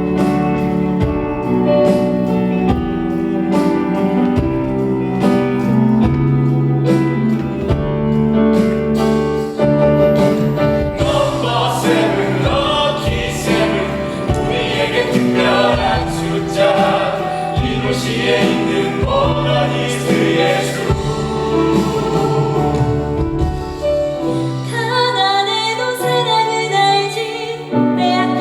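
Musical theatre cast singing together as an ensemble over live band accompaniment, a curtain-call number, loud and steady.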